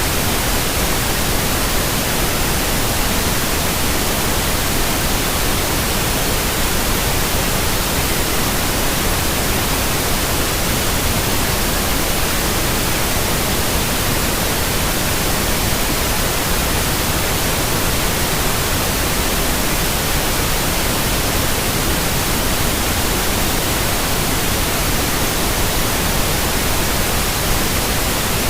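Steady white noise played as a baby sleep sound: an even, unbroken hiss spread across all pitches, with no change in level.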